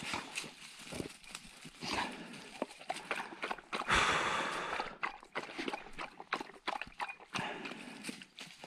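Movement through dry leaves and undergrowth: irregular crunching and snapping, with a longer, louder rustle about four seconds in.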